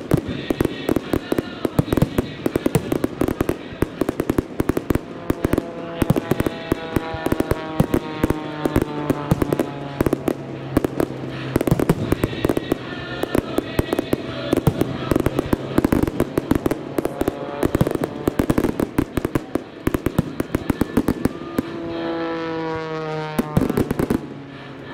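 Fireworks display: a dense run of bangs and crackling bursts, one after another, over music with held notes.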